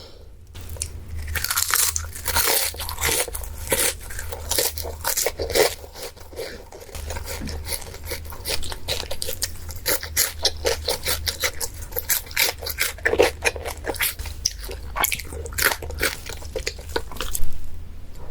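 Close-miked eating: crunchy bites and chewing of crisp food, a dense, irregular crackle over a steady low hum.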